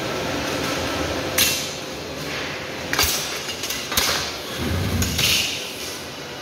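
Several sharp knocks, roughly a second apart, over a steady rumbling background noise.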